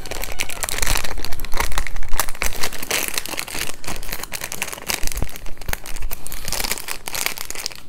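Clear plastic wrapper on a pack of game cards crinkling loudly in the hands as it is worked open.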